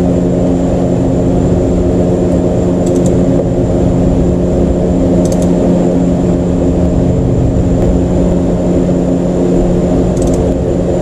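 A steady, loud mechanical hum of several even pitches, unchanging throughout, with a few faint, short ticks over it.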